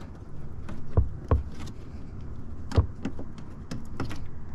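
Hands working an old rubber mounting grommet out of its seat in a car's engine bay: a few sharp clicks and knocks, the loudest near three seconds in, with smaller ticks over a low steady rumble.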